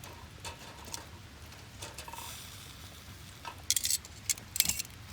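Low, faint background, then a quick cluster of sharp clinks and rattles of gear being handled, about three and a half seconds in.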